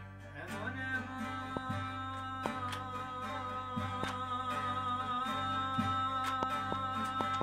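Long-necked saz (bağlama) being plucked in a steady rhythm, with a voice gliding up and holding one long, wavering note over it.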